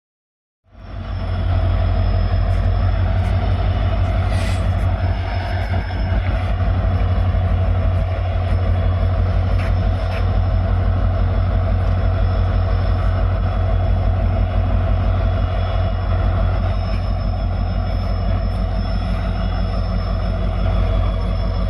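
WDG-4 diesel-electric locomotive's 16-cylinder two-stroke EMD 710 engine idling with a steady, deep hum, starting up out of silence about a second in.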